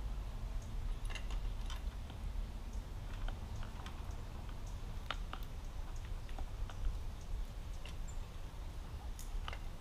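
Scattered, irregular light clicks and taps of small metal parts being handled and fitted during coilover shock assembly, over a steady low hum.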